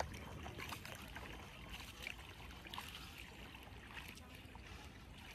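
Faint water splashing and trickling as a hand dips and moves in the water beside a wooden canoe, in small irregular splashes.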